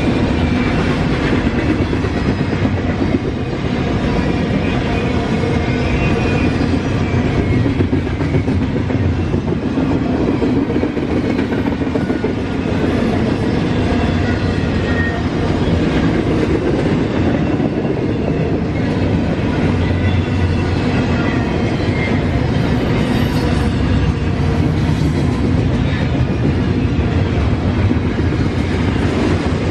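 Norfolk Southern freight train's cars rolling past steadily, wheels clicking over the rail joints.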